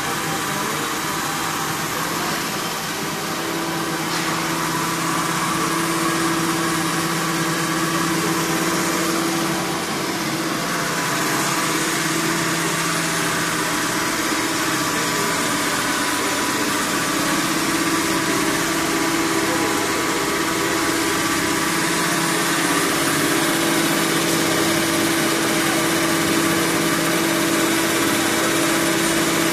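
A double-stage vacuum transformer oil purifier running, its electric-motor-driven vacuum pumps and oil pumps making a steady machine hum with a constant low drone.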